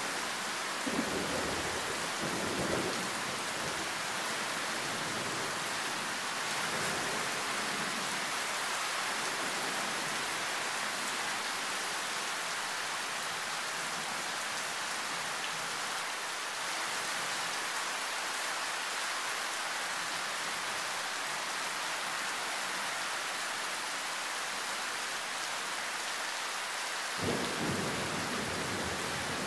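Heavy rain pouring steadily, a loud even hiss. Thunder rumbles low underneath in the first few seconds, then again from a sudden start near the end.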